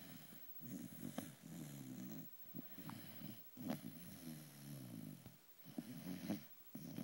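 Sleeping beagle snoring: a low snore on each breath, about four long breaths with short pauses between them, with brief clicks in some of them.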